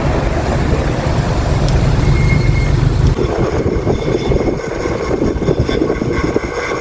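Wind buffeting the microphone, with road and tyre noise, as a 1000 W front-hub electric bike is ridden at speed. The low rumble is heaviest for the first three seconds, then turns choppier.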